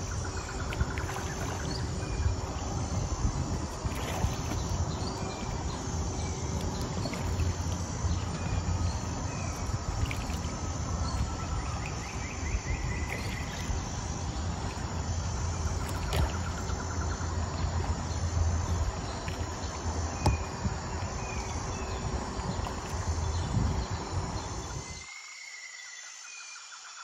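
Wind rumbling and buffeting on the microphone in an open boat, with a faint steady hum underneath and short high chirps now and then. About 25 s in, the rumble cuts off abruptly and only a quieter background with a few chirps remains.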